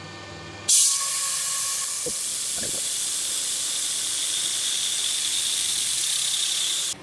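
Compressed-air jet hissing steadily at the lathe's cutting tool, blowing chips off and cooling the cut in place of coolant. It comes on abruptly under a second in and cuts off suddenly near the end.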